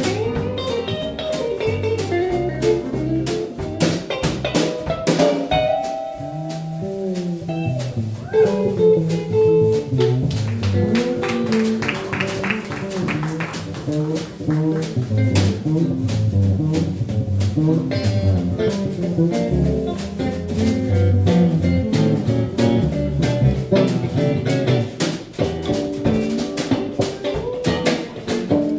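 Background jazz music with a steady beat.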